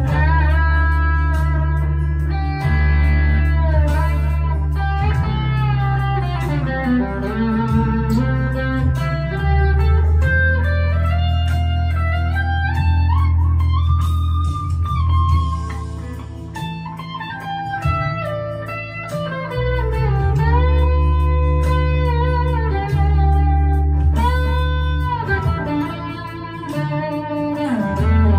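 Harley Benton ST-Modern HSS electric guitar played through an overdrive pedal: a lead line with string bends and held notes, over steady low bass notes that change every few seconds.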